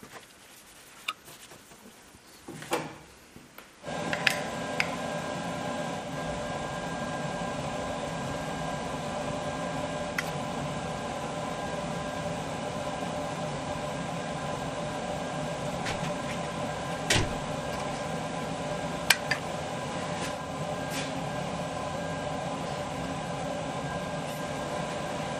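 A few light clicks, then about four seconds in a machine starts up abruptly and runs with a steady hum, with occasional sharp clicks over it.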